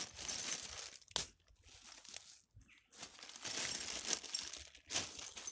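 Clear plastic packaging bags crinkling and rustling as hands dig through them, in several bursts with a quieter pause in the middle and a sharp click about a second in.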